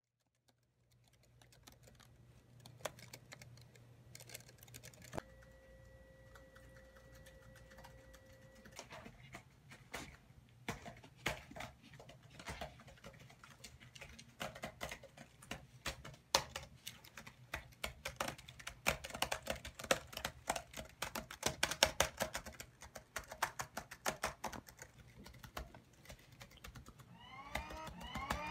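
Typing on a computer keyboard: rapid keystrokes that come thicker and faster as it goes on, over a low steady hum. A steady two-tone beep sounds for about three and a half seconds around five seconds in, and a run of quick rising chirps starts near the end.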